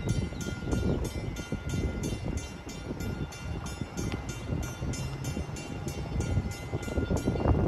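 A warning bell ringing rapidly, about three strokes a second, over a low rumble; the bell stops near the end.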